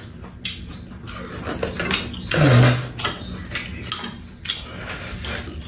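People eating noodles with chopsticks: slurping and chewing, with light clicks of chopsticks against bowls and a metal tray. A short low hum from one of the eaters comes about halfway through.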